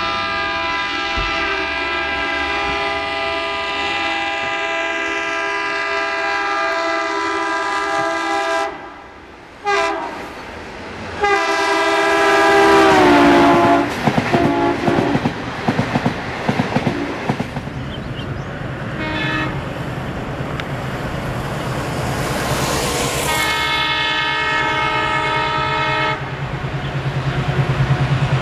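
Diesel locomotive horns: a long, steady multi-tone horn blast that cuts off about nine seconds in, then another horn that drops in pitch as a train passes close. This is followed by the clickety-clack of a passing train's wheels over rail joints, broken by more horn blasts, and a low, steady diesel engine hum near the end.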